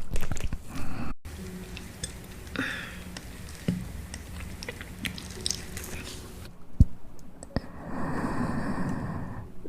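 Close-up mouth sounds of someone eating: chewing with wet clicks and smacks, then a rough, noisy sound lasting about a second and a half near the end.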